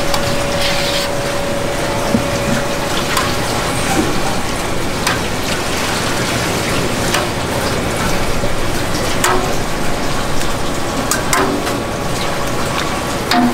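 Metal ladle clinking and scraping against a stainless steel stockpot as soft tofu curd is scooped out into a cloth-lined mould, a knock about every two seconds over a steady rushing background noise.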